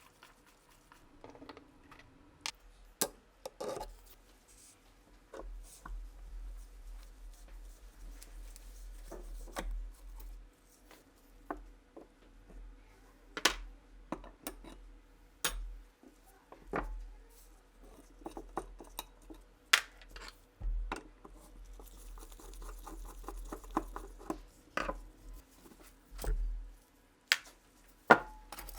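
Small metal parts of a Nagant revolver being handled and worked: irregular clicks, taps and clinks, with a few sharper knocks, over a faint low rumble.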